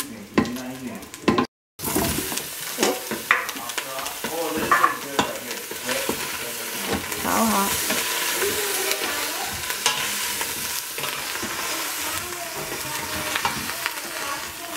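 Meat sizzling in an Instant Pot's stainless steel inner pot, stirred with a wooden spatula that scrapes and taps against the metal. The hiss drops out for a moment about one and a half seconds in, then goes on steadily.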